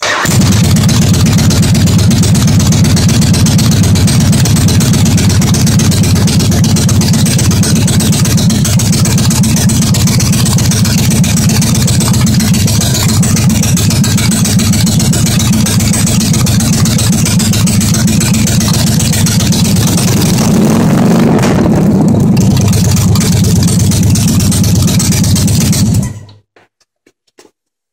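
1989 Yamaha Virago 1100 V-twin engine, freshly rebuilt with a big-bore kit and custom cams, running loudly on its first start after the rebuild. Its pitch briefly rises and falls about three-quarters of the way through, and the engine shuts off quickly near the end.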